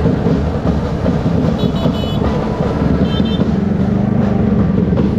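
Motorcycle and truck engines running in a slow, crowded convoy, a steady loud rumble. Short high-pitched beeps sound in quick clusters about a second and a half in and again about three seconds in.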